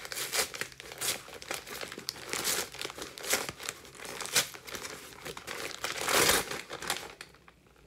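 Brown kraft packing paper being pulled apart and crumpled by hand: a quick, irregular run of crinkles and crackles, loudest about six seconds in, stopping about a second later.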